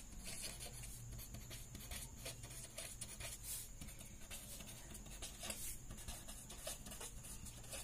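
Pen writing on paper: faint, quick scratchy strokes as words are written out, over a faint low hum.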